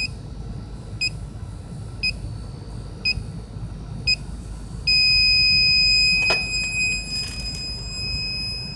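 Inficon Tek-Mate electronic refrigerant leak detector beeping about once a second. About five seconds in it switches to a loud steady alarm tone that holds for nearly four seconds, the detector sensing escaping R-410A refrigerant at the leak.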